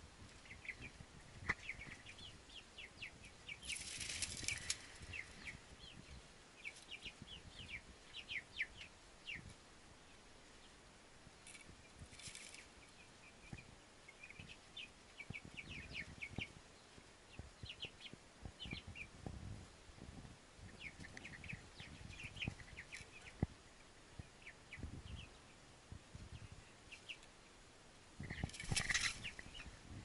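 Cockatiel chirping in quick runs of short, high notes, with two louder, harsher bursts, one about four seconds in and one near the end.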